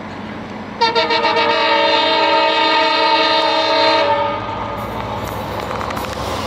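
An EMD WDG-4 diesel locomotive sounds one steady horn blast of about three seconds, starting about a second in. After the horn stops, the approaching locomotive's engine and the train's wheels are heard running.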